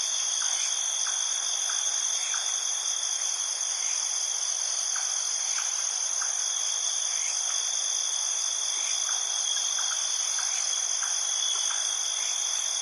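Steady night chorus of crickets and other insects in tropical forest, a continuous high-pitched trilling, with faint short chirps repeating about twice a second beneath it.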